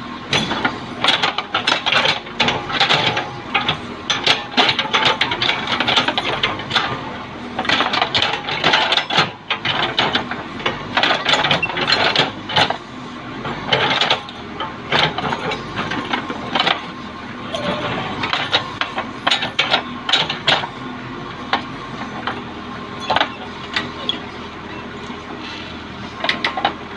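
Case 580L backhoe loader digging: its diesel engine runs steadily under many irregular metallic knocks and rattles from the bucket and boom linkage.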